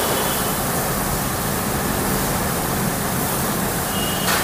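Steady, even background noise with a faint low hum, unchanging throughout, with no distinct knocks or tool sounds.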